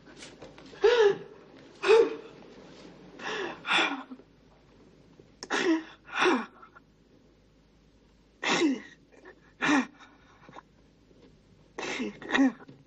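A person's short, strained gasping cries, about ten of them, often in pairs, each breathy and falling in pitch, with pauses of a second or more between.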